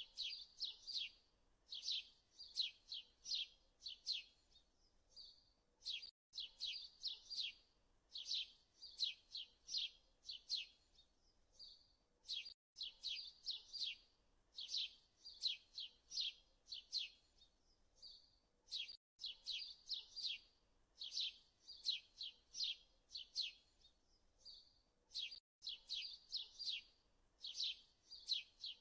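Small birds chirping: quick runs of short, high chirps in the same few-second pattern, repeating about every six seconds with a brief dead gap between repeats, as in a looped birdsong recording.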